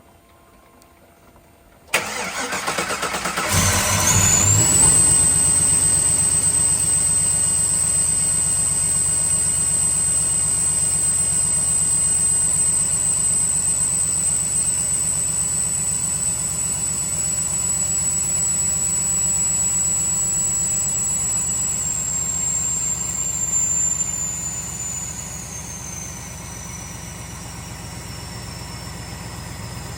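Supercharged LS-swapped V8 in a 1978 Chevrolet Caprice cranking briefly about two seconds in and starting right up on the first try, after a no-start repair and fresh oil. It runs at a fast idle with a high steady whine over it; about 24 seconds in, the idle and the whine both drop as the engine settles.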